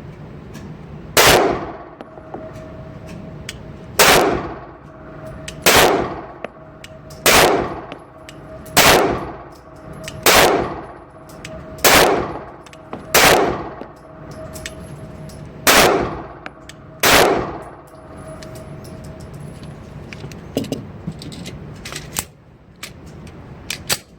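Springfield XD subcompact 9mm pistol fired eleven times at an unhurried pace, roughly one shot every one and a half seconds, each ringing out briefly, followed by a few light metallic clicks near the end.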